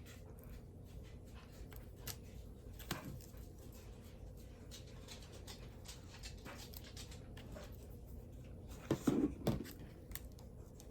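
Faint handling sounds from crafting with a cardboard box and wrapped candy: scattered light taps and rustles, with a louder short rustle or bump about nine seconds in.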